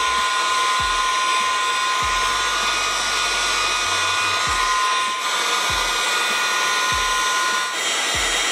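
Electric heat gun running steadily, a blowing hiss with a high whine, shrinking heat-shrink tubing over soldered wire splices. Its whine changes pitch near the end.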